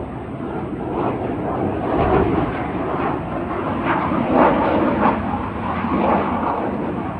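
Mitsubishi F-2 fighter jet flying overhead: loud, rough, crackling jet noise from its single turbofan engine, swelling and easing as it passes.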